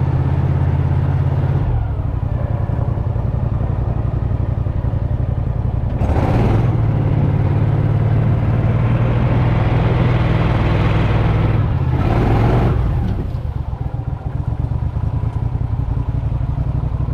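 A small engine running steadily under load, its note shifting about two and six seconds in, with two short rushes of noise around six and twelve seconds in; it eases off a little near the end.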